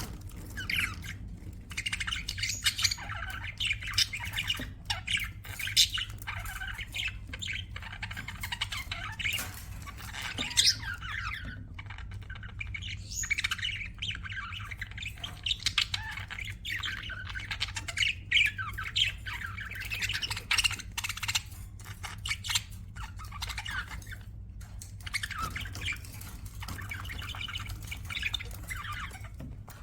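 A group of budgerigars chattering, with a continuous stream of overlapping warbles, chirps and squawks and a steady low hum beneath.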